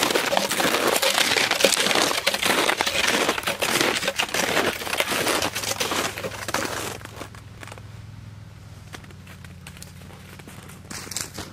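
Footsteps crunching in packed snow, loud and close for about the first seven seconds, then much quieter.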